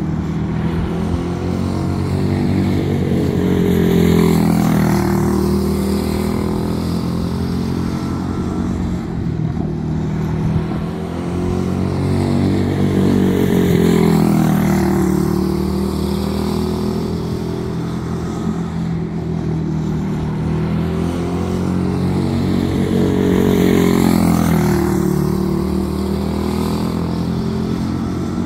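Quarter midget race car's small single-cylinder Animal-class engine running laps. It grows louder three times, about every ten seconds, as the car comes by, and fades between passes.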